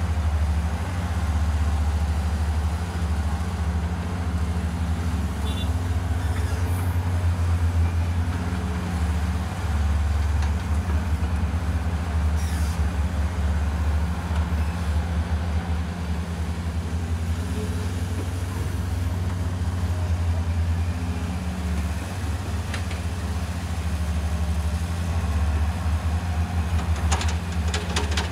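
Heavy diesel engines of working excavators and dump trucks running steadily, a low drone that swells and eases as the machines dig and load. A few light clicks near the end.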